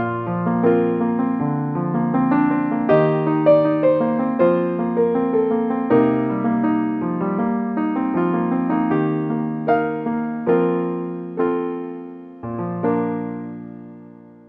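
Slow, gentle piano music: single notes struck one after another over low held chords. A final chord is struck near the end and fades away.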